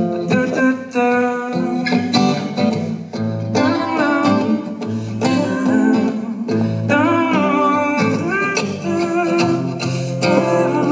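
Live acoustic guitar strumming, with a man's voice singing without words over it.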